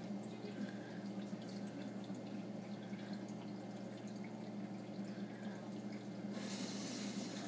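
Home reef aquarium's water circulation: water trickling and dripping over a steady low pump hum, with a louder hiss of rushing water for about a second near the end.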